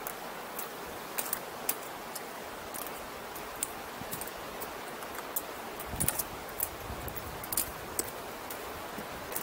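Footsteps on loose shale and boulders: irregular sharp clicks and scrapes of boots on rock, with small jangling clinks of carried gear, over a steady rushing background.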